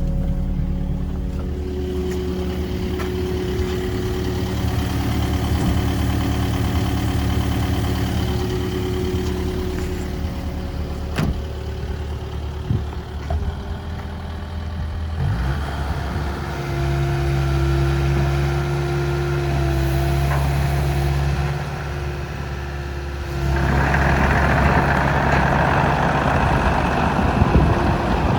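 Kubota KX080 midi excavator's diesel engine running steadily, its note shifting about halfway through, with a louder rushing hiss coming in over it near the end.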